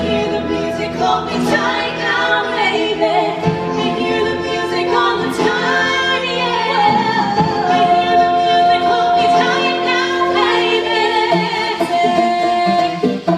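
Stage show music with women singing a melody over the accompaniment, holding one long note about eight seconds in and another near the end.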